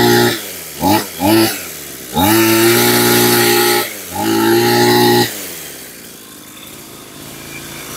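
Maruyama brush cutter engine (38 mm bore) being revved by hand: held at high revs, two quick throttle blips about a second in, two longer runs at high revs, then dropping back to a low idle about five seconds in.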